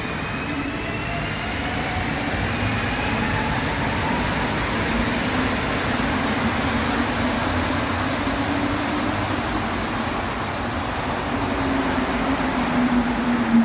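Montreal metro train running, heard from inside the car: a loud, steady rumble and rushing hiss, with a faint motor whine rising over the first few seconds.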